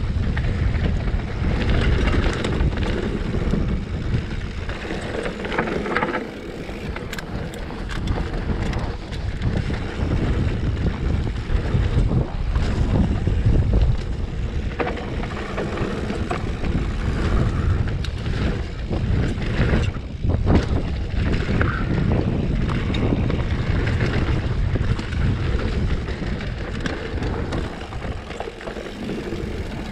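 Wind buffeting a rider's action-camera microphone during a fast mountain-bike descent, over the continuous rumble of knobby tyres rolling on a dry dirt trail. Frequent knocks and clicks from the Specialized Stumpjumper's chain and frame rattling over bumps.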